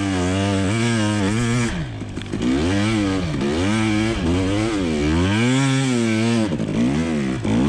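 Two-stroke engine of a 2020 KTM 300 XC TPI dirt bike, ridden with the throttle worked on and off so the engine pitch climbs and falls back over and over, with a short drop near two seconds in.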